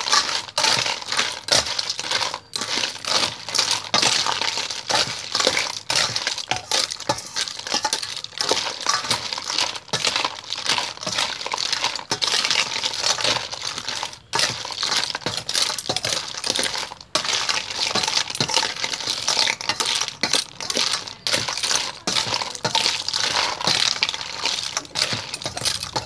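Boiled freshwater snails in their shells clattering against each other and the stainless-steel bowl as the snail salad is tossed with a spoon, in a dense, continuous clinking rattle.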